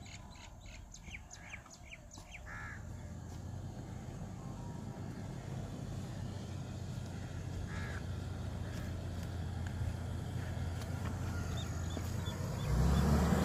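Suzuki Jimny Wide's 1.3-litre engine running as the 4x4 drives across sand toward the listener, growing steadily louder and jumping louder near the end as it comes close. Small birds chirp in the first two seconds, and a crow caws a couple of times.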